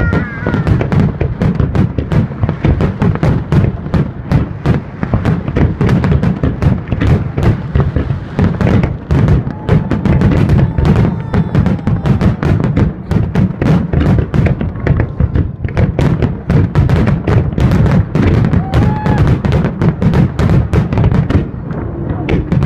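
Fireworks salute: a dense, continuous barrage of bangs and crackles with a deep rumble, music playing along with it.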